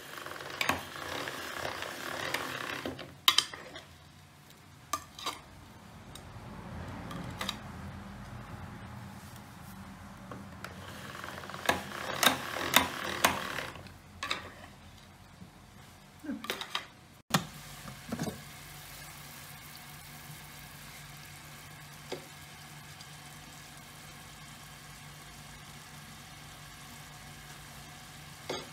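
Small hand-operated noodle cutter working sheets of homemade egg-noodle dough, giving two spells of rustling and sharp clicks. Then a steady low hum as the pot of soup sits on the hob.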